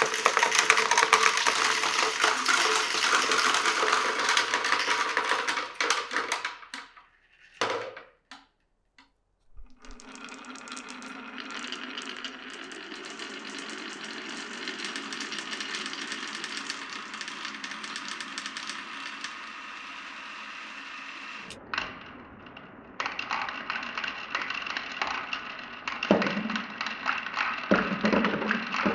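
Glass marbles rolling and clattering along a wooden marble run. It opens with a dense rattle of many clicks, then a few seconds of near quiet broken by a couple of single knocks. After that comes a long, steadier rolling run, and about two-thirds of the way in the rolling picks up again with clicks.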